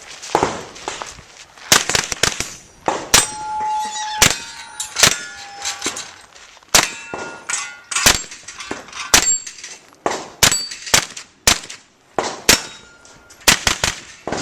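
A 9mm pistol-caliber carbine fired in quick strings of shots, each hit ringing a steel target with a sharp metallic clang. There are some twenty reports in uneven clusters, a few leaving a short ringing tone.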